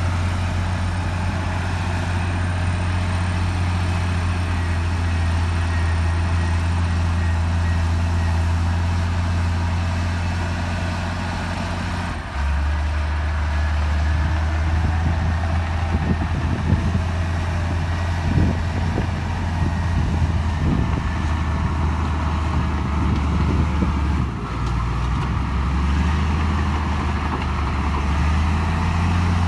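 Heavy diesel engine of earthmoving machinery running steadily. About twelve seconds in its note drops lower, and a series of short clanks and knocks follows. The note steps back up to its first pitch near the end.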